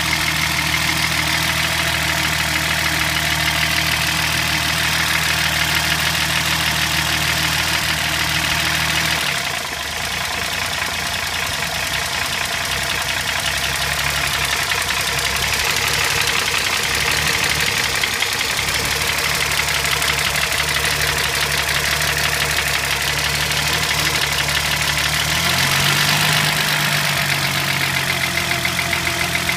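BMW E30 325i's M20B25 straight-six idling steadily, heard close up from the engine bay. About a third of the way in the even low hum breaks up for a while, and near the end the idle steps up slightly in pitch.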